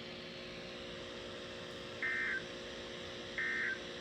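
Weather radio sounding the EAS end-of-message code: two short, identical bursts of warbling SAME digital data tones about 1.4 s apart, over a low steady hum.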